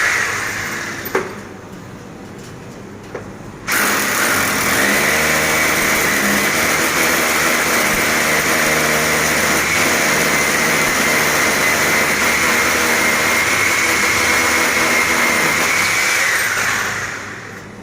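Handheld electric power tool running at full speed with a steady high whine for about thirteen seconds, starting abruptly and winding down near the end. Before it, an earlier run dies away, followed by a quieter stretch with two sharp clicks.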